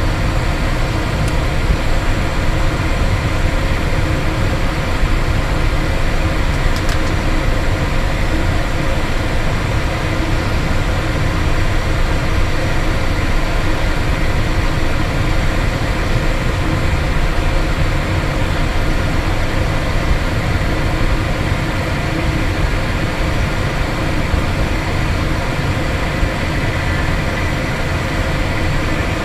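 Cessna Citation Bravo's twin Pratt & Whitney PW530A turbofans running at low power while taxiing, heard from inside the cockpit: a loud steady rumble with a steady high whine on top.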